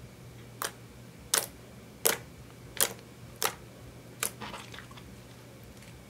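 Fingers pressing and poking clear slime tinted with purple and blue eyeshadow, making six sharp slime clicks about every three quarters of a second, then a short run of fainter crackles.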